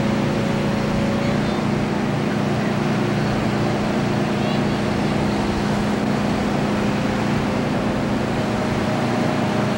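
Steady surf and wind noise on the beach, over a constant low hum that does not change.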